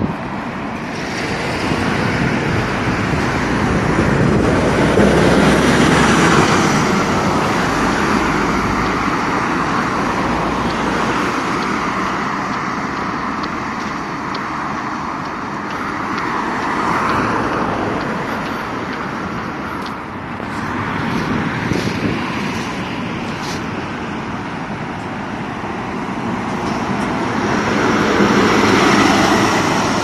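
Road traffic passing close by: cars and buses going past one after another, each pass rising and fading away, the loudest about six seconds in and near the end, when a coach goes by.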